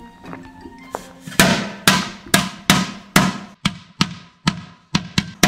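A Knallfrosch (jumping-jack firecracker, a folded string of small bangers) going off inside a closed portable grill: a run of about a dozen sharp bangs, roughly two a second, starting about a second and a half in. It sounds as if the grill had wind.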